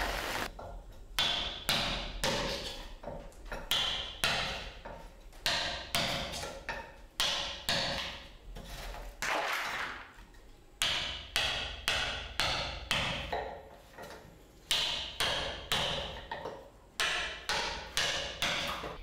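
Hammer blows on a chisel cutting into a log, about one strike every three-quarters of a second, each a sharp knock with a short ring, with a pause of a second or so midway. This is the rough-shaping (geodmokchigi) stage of carving a wooden Buddha statue.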